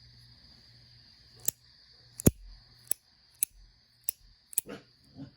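Bastion Slim aluminium bolt-action pen being clicked: about six sharp, separate clicks spaced roughly half a second apart, the loudest a little past two seconds in.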